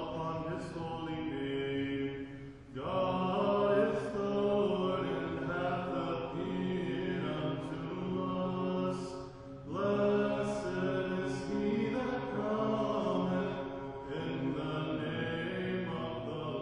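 Chanted vocal music: voices sing long, sustained phrases over a held low drone note, with short breaths between phrases about three and ten seconds in.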